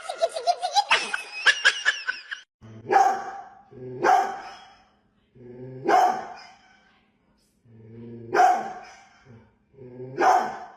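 A dog barking: about five single barks spaced a second or two apart, starting about three seconds in. Before them, for the first two seconds, there is a high, fast-warbling sound.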